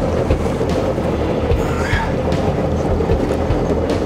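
Boat engine idling with a steady low hum, under a constant rush of wind and sea.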